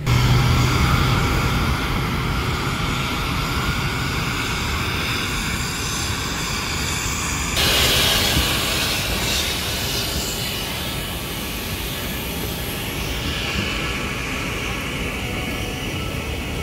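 Jet aircraft noise on an airport apron: a steady rush with a high whine. About seven and a half seconds in it changes abruptly to a louder, hissier stretch.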